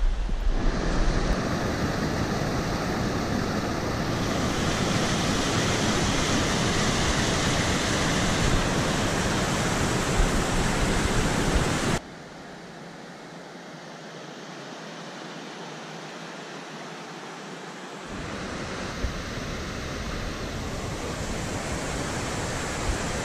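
Steady rush of a glacial meltwater river, loud and mixed with wind on the microphone for the first twelve seconds. It cuts abruptly to a quieter, thinner rush, which fills out and grows a little louder again about eighteen seconds in.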